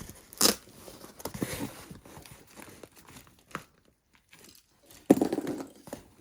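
Cardboard box and packing tape being torn open and crumpled in irregular rips and crinkles. A sharp loud rip comes about half a second in, and after a brief lull another loud burst of tearing about five seconds in.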